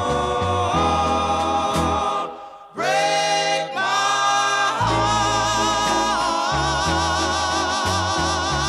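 Music: singing voices in harmony over a stepping bass line, with a short break about two and a half seconds in, then a long held note sung with vibrato.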